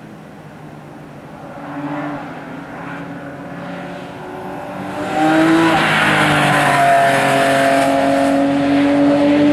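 Porsche 997 GT3 Cup race car's naturally aspirated flat-six engine at track pace. Faint and distant at first, it turns much louder and closer about halfway through, its pitch climbing steadily as the car accelerates.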